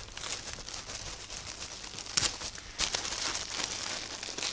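Tissue paper crinkling and rustling as a wrapped parcel is handled and pulled open, with a sharper crackle a little after two seconds in.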